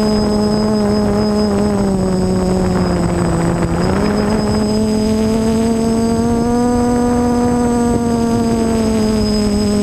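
Multicopter's electric motors and propellers droning steadily in flight, heard from on board. The pitch sinks for the first few seconds, jumps back up about four seconds in as the throttle comes up, then rises slowly and eases off again near the end.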